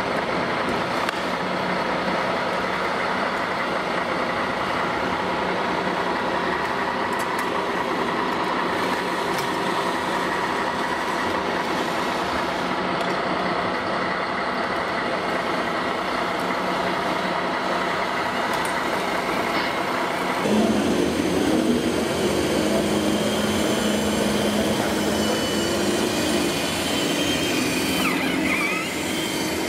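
Radio-controlled 1:8-scale Mercedes Rundhauber 1513 model truck driving, a steady running hum over the noise of the exhibition hall. About two-thirds of the way through it jumps louder, with the truck close by.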